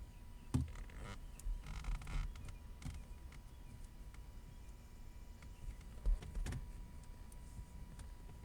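Scattered clicks and knocks of plastic trim pieces and a screwdriver being handled during reassembly of a car's center console, with a short rasping whir about two seconds in.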